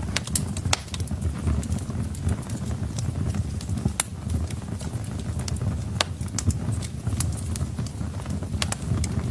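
Wood fire burning in a fireplace: a steady low rumble of flames under irregular sharp crackles and pops from the burning logs.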